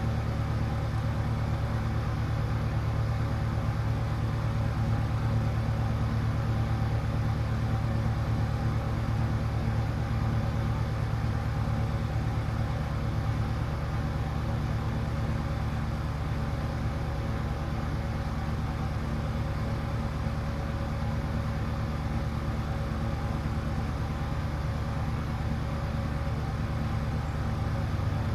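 A steady low mechanical hum with several constant tones, unchanging throughout.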